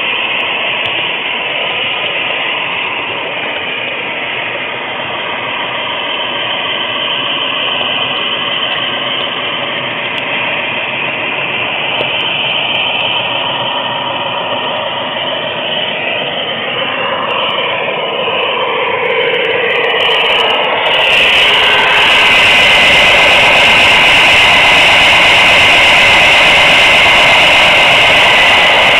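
HO scale model train rolling along the track, picked up by a camera taped to the flat car it rides on: a loud, continuous rattling rumble of wheels on rail. Whines slide up and down in pitch midway through, and about three-quarters of the way in the noise turns louder and harsher.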